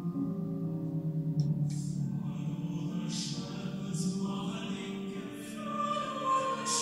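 Four-part mixed choir (soprano, alto, tenor, bass) singing a contemporary choral setting with piano accompaniment. The voices sustain chords, with the hiss of sung consonants, and a high soprano note stands out near the end.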